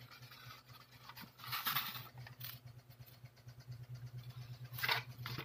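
Faint rubbing and scraping of a motorcycle helmet being moved about on a floor, over a low steady hum.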